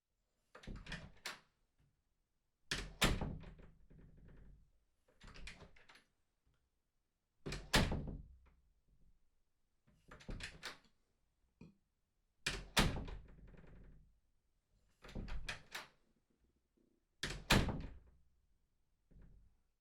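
A door opened and shut again and again, about four times over: short quieter clatters alternate with louder thunks that ring out briefly, one event every two and a half seconds or so.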